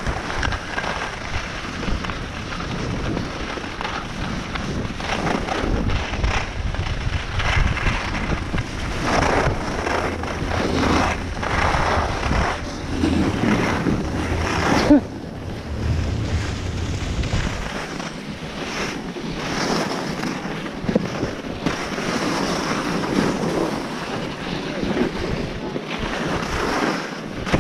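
Skis scraping and skidding over packed snow at speed, with wind rushing over the microphone. The low rumble drops away about two-thirds of the way through.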